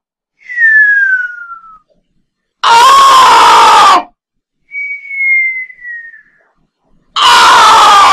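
A voice screaming "Chrima!" so loudly that it clips and distorts, twice: about three seconds in and again near the end. Between the screams come thin, high whistle-like squeals that slide downward in pitch.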